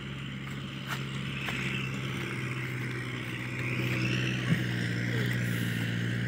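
Kubota L5018 tractor's diesel engine running steadily under load as it drives a rotary tiller through heavy grass in first gear, growing a little louder about four seconds in.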